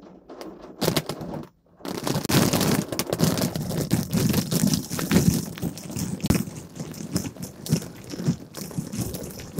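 Water from an open fire hydrant pelting the car, a loud, dense spatter that starts suddenly about two seconds in after a few short splashes.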